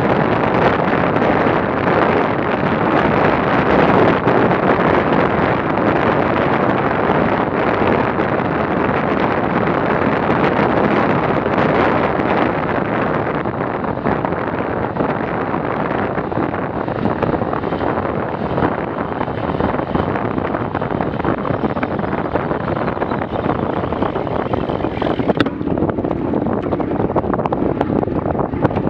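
Steady wind noise buffeting a handlebar-mounted action camera's microphone, mixed with road noise from a bicycle descending at close to 60 km/h. The rush eases a little in the second half as the bike slows, and there is a single sharp click near the end.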